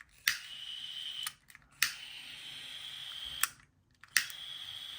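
Rothenberger gas micro soldering torch being lit: its piezo igniter clicks about five times, and after several clicks a steady gas hiss starts, cuts off, then starts again. After the last click, near the end, the torch keeps running with a steady hiss.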